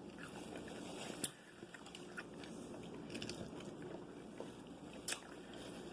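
A person chewing and biting food close to the microphone. A sharp click about a second in and another near the end stand out over the chewing.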